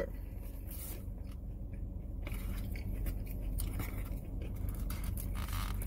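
Quiet eating sounds: chewing and small scrapes and crinkles as fingers pick food and a cracker wrapper out of a plastic takeout container, over a steady low hum in the car's cabin.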